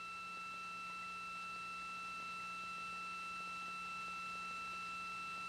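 A steady, faint high electronic tone with a lower hum beneath it, unchanging throughout.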